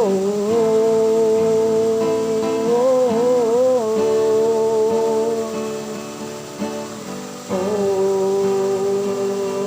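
Background song with strummed acoustic guitar under long, wavering held vocal 'oh' notes. One note runs through the first half, and a second starts about seven and a half seconds in.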